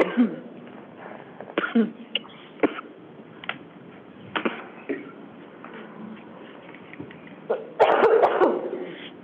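A woman coughing in a fit: separate coughs and throat clearing come irregularly, with a heavier run of coughs near the end. The sound is cut thin, as over a video-call audio line.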